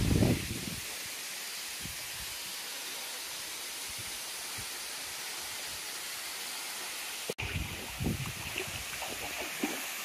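Steady rushing hiss of a tall, thin waterfall falling into a rock pool. There is a short low thump at the start, and a brief dropout about seven seconds in, followed by a few low bumps.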